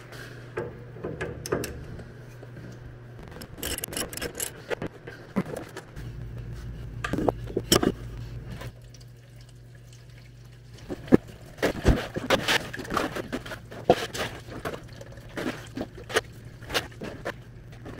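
Clicks and knocks of an Allen wrench working a drain plug out of a Genie scissor lift's hydraulic tank. About halfway through, hydraulic oil starts pouring from the drain port and splatters into a drain pan.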